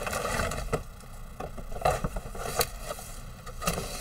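Clear plastic bag holding plastic model-kit sprues crinkling and rustling as it is pulled out of a cardboard box and set down, with several sharp knocks and taps of the box and parts.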